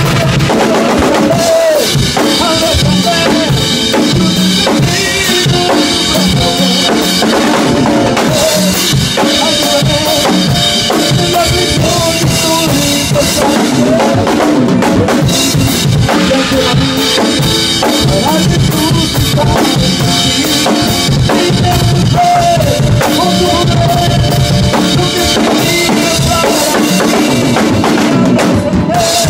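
Acoustic drum kit played close up: a driving beat on kick drum, snare and cymbals, with cymbal crashes now and then. It backs a live worship song, with a singer's voice and other instruments underneath.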